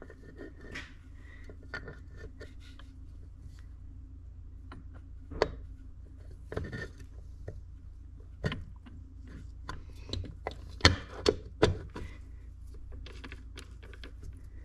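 Scattered clicks and metal knocks from a Polaris RZR 170 transmission housing cover being handled and fitted onto the gearcase by hand, the loudest knocks coming about two-thirds of the way through. A faint steady hum sits underneath.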